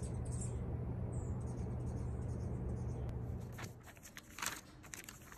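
A steady low hum that cuts off suddenly after about three and a half seconds, followed by soft paper rustles and a sharp tap or two as a hand handles the pages of an open notebook.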